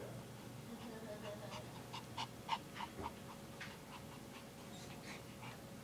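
An adult Pomeranian and a Pomeranian puppy playing, making a run of short, quick dog sounds that are thickest and loudest between about two and three seconds in.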